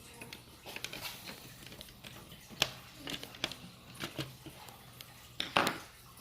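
Scattered light clicks and taps of a screwdriver and the plastic parts of a 1978 Kenner X-Wing toy being handled as its screws are driven back into the plastic. The loudest knocks come in a quick cluster near the end.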